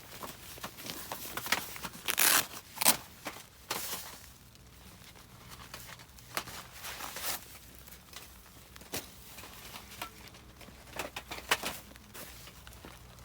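Close handling noises: a run of crinkling and rustling with sharp clicks, loudest in a few quick bursts about two to three seconds in.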